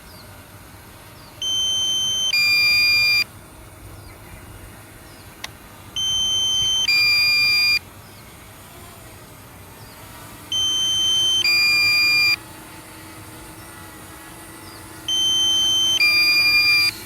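Low-battery warning of the DJI Mini 2 SE drone's controller app: a loud two-tone beep, a higher tone held for about a second then a lower one, repeating four times about every four and a half seconds. It signals that the drone's battery is low.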